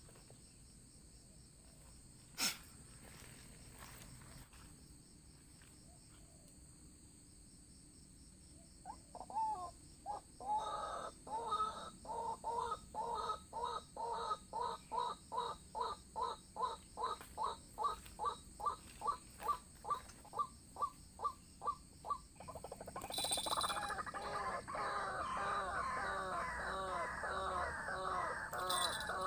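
White-breasted waterhens calling. A single sharp click comes about two seconds in. From about nine seconds a regular series of calls runs at about two a second. From about twenty-two seconds a louder, faster, unbroken run of calls takes over.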